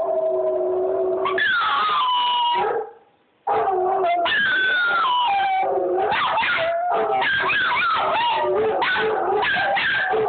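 Dog howling played back from a YouTube video: several long, falling howls overlap, with a brief gap about three seconds in.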